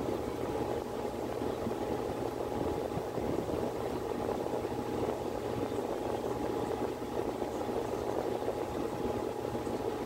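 Miller E2 series furnace running in heating mode: a steady rushing hum with a faint, steady whine over it.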